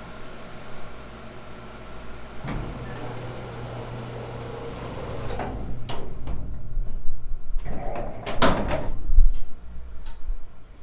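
Elevator machinery humming, louder with a low drone from about two seconds in. Then a run of clanks and knocks and a loud rattling door-sliding burst about eight seconds in, as the car stops and its door works.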